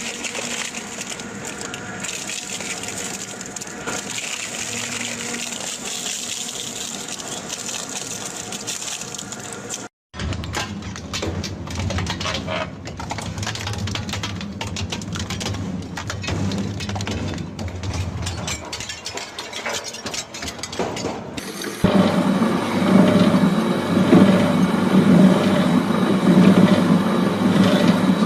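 Crushing machinery at work, a hydraulic press or crusher pressing objects: a steady machine hum with many crackles and snaps as material gives way. The sound cuts abruptly between clips about ten seconds in and again near the end, and the last clip is louder.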